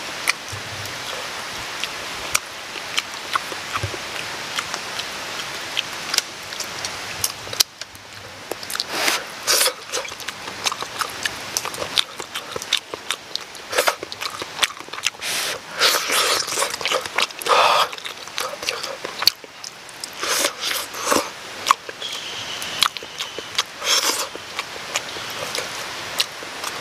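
Close-up chewing and lip-smacking of someone eating a soft, half-cooked duck-egg omelette: irregular wet smacks and clicks over a steady background hiss.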